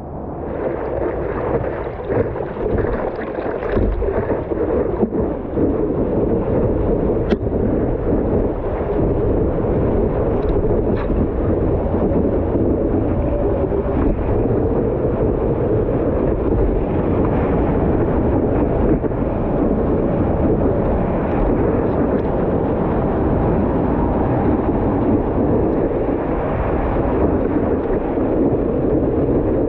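Water rushing and splashing around a stand-up paddleboard, with wind buffeting the microphone of the camera mounted on the board's nose. It is a steady loud noise that keeps going through the ride.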